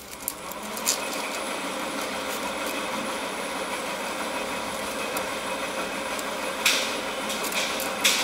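A steady engine-like running noise with a few faint fixed tones, from a motor nearby. Over it come a few sharp clacks of bamboo arrows being pulled from a straw target and handled, about a second in, near seven seconds and near the end.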